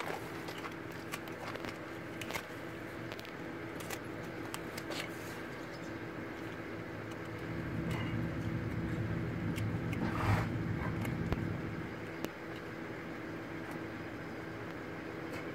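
A motor running steadily with a low hum, under scattered faint clicks and scrapes of a hoof knife paring a horse's hoof. A brief louder noise comes about ten seconds in.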